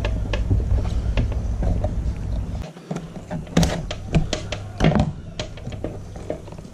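Hands working a glued rubber foot pocket loose from a carbon-fibre fin blade: handling noise with scattered clicks and a few dull thunks in the middle. A low rumble runs under the first few seconds and stops abruptly.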